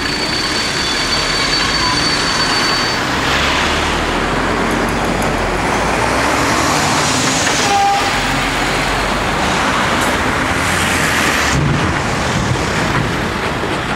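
Cars and then a heavy tipper truck driving across a level crossing close by, a steady wash of engine and tyre noise with a short beep about eight seconds in.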